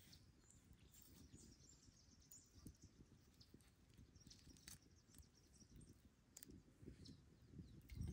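Near silence: faint outdoor ambience with scattered short, high bird chirps over a low rumble, and a few soft clicks.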